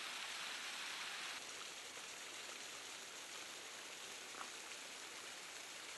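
Faint steady hiss of rain and runoff streaming down a wet rock cliff, turning a little softer about a second and a half in.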